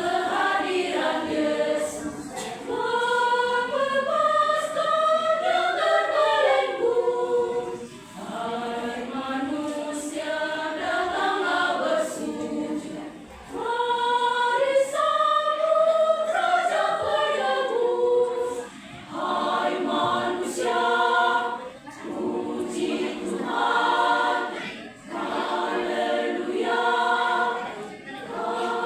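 Women's church choir singing in several parts, in long phrases broken by brief pauses for breath. In the second half the notes turn shorter and more rhythmic.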